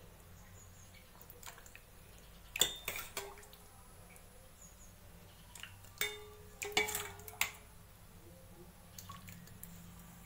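Stainless-steel ladle clinking a few times against a steel pot and bowl, in two clusters about 3 and 7 seconds in, some clinks ringing briefly. Between the clinks, soft pouring and dripping of thick sambar.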